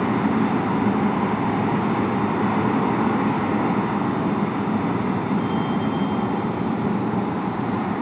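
Alstom-built R160B subway train running away down the tunnel after leaving the station: a steady low rumble that slowly fades, with a brief faint high squeal about two-thirds of the way through.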